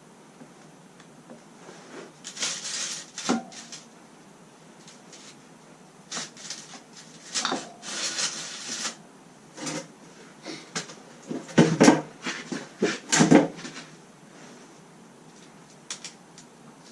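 Hand work on dirt-bike parts and tools: a string of irregular knocks, clinks and short scraping rustles. The loudest knocks come about twelve and thirteen seconds in.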